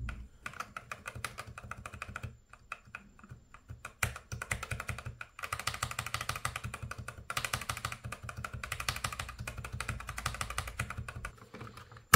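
Rapid typing on a Keychron V1 mechanical keyboard with rubber O-rings fitted under the main keycaps, a demonstration of its dampened key sound. The typing comes in runs, with a short pause about two seconds in and another just after five seconds.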